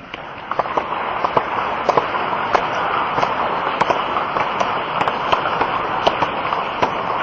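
A crowd applauding: dense, steady clapping that swells up in the first second, with scattered single claps standing out above the rest.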